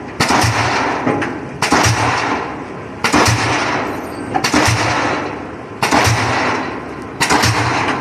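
Pile-driving hammer on a lattice-leader rig striking a steel pile at a steady rhythm: six heavy blows, one about every second and a half, each with a sharp crack that rings and dies away before the next.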